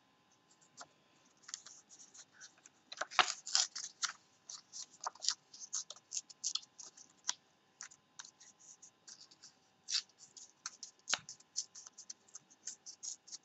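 Thin printed paper rustling and crackling in the hands as small pieces are torn off it: a run of short, irregular crackles, busiest about three to four seconds in.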